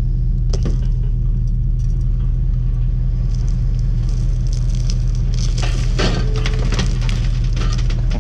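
Engine running steadily underneath. From about five and a half seconds in comes a two-second run of crunching and cracking, metal and glass, as a scrapyard grapple takes hold of a scrap car.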